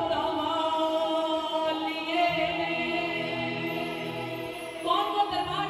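Music with voices singing together, holding long, drawn-out notes.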